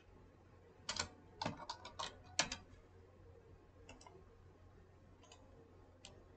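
Faint computer keyboard typing: a quick run of about eight keystrokes between one and two and a half seconds in, then three or four single clicks spaced out.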